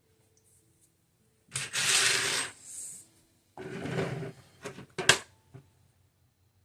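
Items being handled on a work table: two scraping rubs, then a few sharp clicks and taps as pieces are set down or adjusted.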